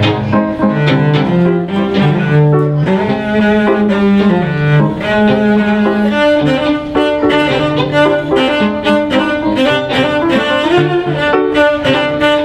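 Cello bowed in a live piano trio piece: long held low notes, then a busier, higher melodic line.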